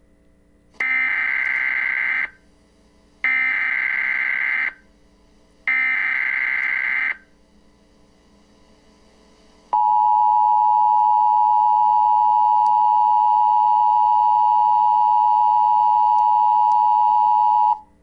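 Emergency Alert System tones: three short bursts of SAME header data about 1.5 s each, then after a pause the steady two-tone EAS attention signal, held for about eight seconds before it cuts off.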